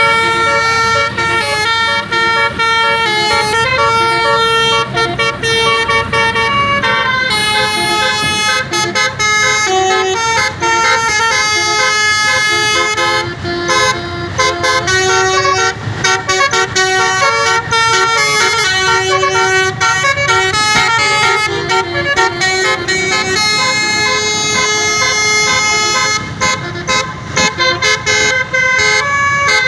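Basuri multi-tone musical bus horn playing a melody: a string of stepped horn notes, often several sounding together, continuing without a break.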